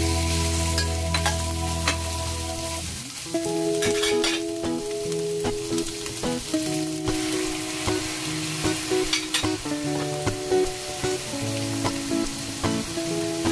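Green bell pepper strips and scrambled egg sizzling in a hot stainless steel wok as they are stir-fried, with a metal spatula scraping and clicking against the pan now and then. A soft background tune of held notes plays underneath.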